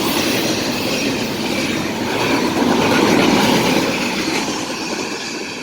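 Cars of a BNSF double-stack container train rolling past: a steady rumble and clatter of steel wheels on the rails. It swells around the middle and gets a little quieter toward the end as the tail of the train passes.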